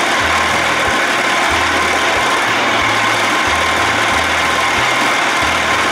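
A 1979 Evinrude 55 hp two-cylinder two-stroke outboard running steadily with its cover off and its lower unit in a test barrel of water. Background music with a stepping bass line plays faintly underneath.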